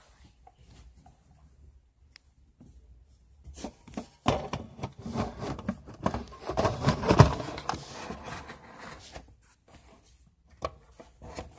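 Handling noise from a phone being tucked into a hiding place: things rubbing over its microphone with many knocks and clicks, loud for several seconds in the middle, then a few scattered taps.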